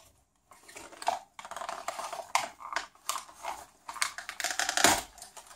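Cardboard packaging tray being handled while the ties holding an RC car to it are cut free with a small knife: a busy run of clicks, scrapes and rustles, with one sharp click about five seconds in the loudest.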